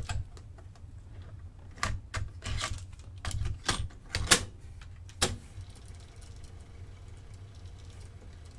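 Clicks and clunks of a JVC cassette deck's cassette door and transport keys being worked by hand: about eight sharp clicks over the first five seconds, the loudest just after four seconds in, then only a low steady hum.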